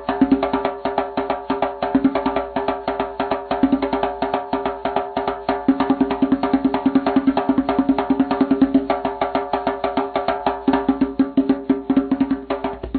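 Background music with a fast, clicking percussion beat over sustained tones.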